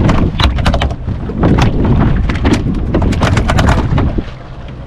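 A rapid, irregular series of loud knocks and thumps over a steady low rumble.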